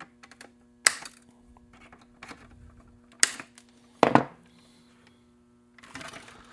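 Cutters snipping off the protruding ends of melted-in metal repair nails on a plastic RC truck body: three sharp snips, about a second in, a little after three seconds and at about four seconds, over a faint steady hum.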